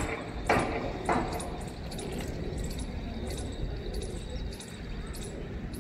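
Handling noise on a phone: three sharp knocks in the first second or so and a weaker one at about two seconds, over a steady low outdoor rumble.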